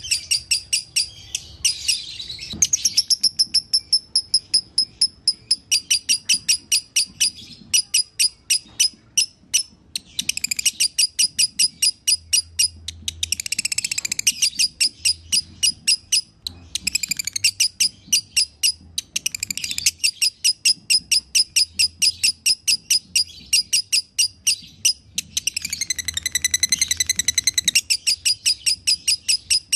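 Lovebird singing in long runs of sharp, high chirps repeated about four or five a second, broken by brief pauses and by stretches of fast, dense chattering about ten seconds in, midway and near the end. The stuttering, doubled delivery is the song style that Indonesian keepers call 'konslet'.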